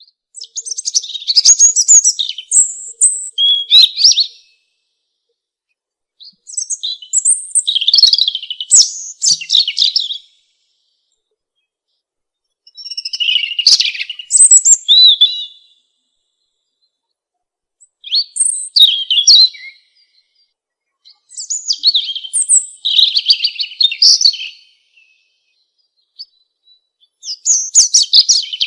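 European robin singing: about six high, fast, warbling phrases, each two to four seconds long, separated by pauses of about two seconds of silence.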